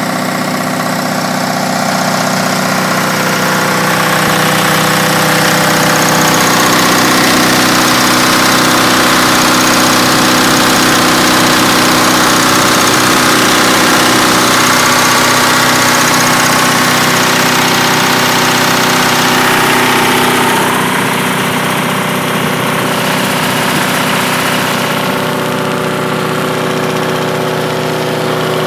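MEP-002 military generator set's two-cylinder air-cooled diesel engine running steadily at constant speed, timed correctly and running normally. The sound gets a little quieter about twenty seconds in.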